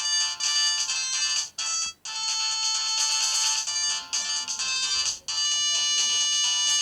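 Samsung SGH-X210 mobile phone playing a polyphonic ringtone melody, thin with almost no bass. It breaks off briefly about two seconds in and again about five seconds in, then carries on.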